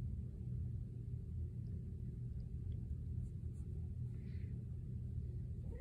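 Steady low hum of room noise with a couple of faint soft sounds. Right at the end a tabby cat starts to meow.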